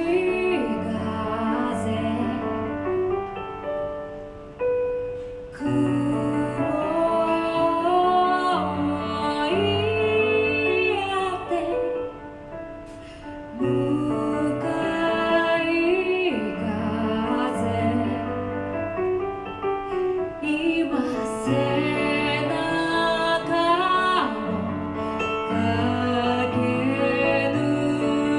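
Live band music: a woman singing over piano and drums.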